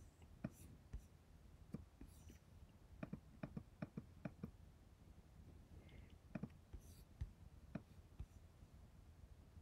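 Faint computer mouse clicks, a dozen or more short sharp clicks at irregular intervals, thickest in a run around the middle, with near silence between them.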